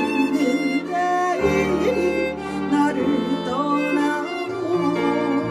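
Ensemble music: a slow bowed string melody, wavering in pitch, over held bass notes that change every second or two.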